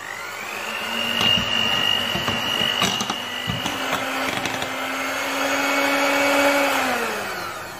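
Electric hand mixer beating cake batter of egg yolks, oil, milk and flour. Its motor whines up to speed at the start, runs steadily with a few clicks, and winds down near the end.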